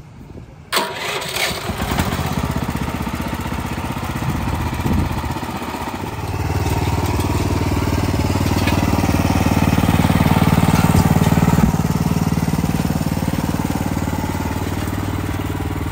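Small gasoline engine on a homemade rice-field sprayer machine starts abruptly about a second in and settles into a steady run, growing louder and fuller about six seconds in.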